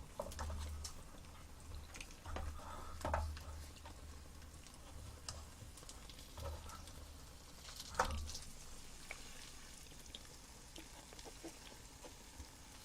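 Quiet eating and food-handling noises while working through eggs: scattered small clicks and crackles, with slightly louder knocks about three and eight seconds in, over a faint low hum.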